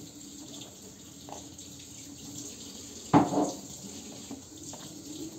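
Water running steadily from a kitchen tap, with one sharp knock about three seconds in and a few small clicks.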